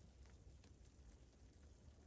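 Near silence: a faint low rumble with a few soft, scattered ticks.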